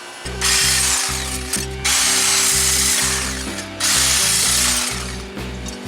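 Background music with a steady, pulsing bass beat, over three long bursts of mechanical tool noise from work on the car's engine.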